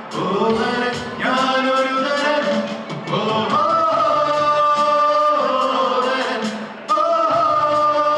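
Live band performing a Malayalam song: a singer holding long, wavering notes over a steady drum beat, with piano backing.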